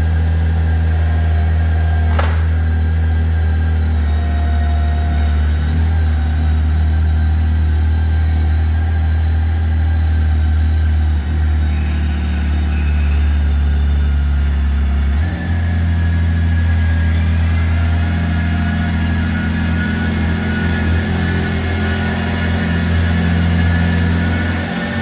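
BMW K1600 bagger's inline-six engine running at a steady idle, with a brief click about two seconds in.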